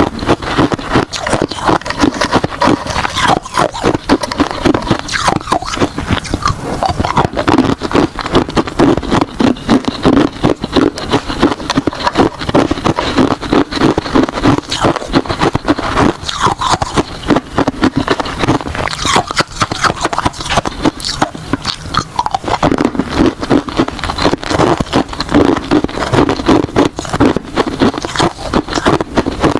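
A person biting and chewing ice, a continuous run of loud, crisp crunches and cracks.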